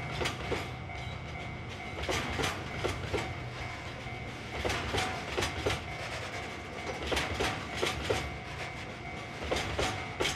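Freight hopper wagons rolling past, their wheels clicking over rail joints in clusters every couple of seconds as each pair of bogies crosses, over a steady low rumble.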